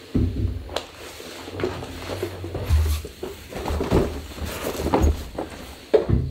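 Footsteps and irregular knocks and thumps on a cargo trailer's hollow floor as a portable fridge is carried in and set down, with a sharp knock just before the end.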